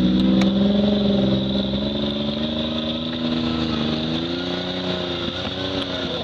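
Lifted off-road SUV on oversized mud tyres, its engine held at high revs as it pulls through deep mud. The pitch wavers a little and the sound slowly fades as the vehicle moves away.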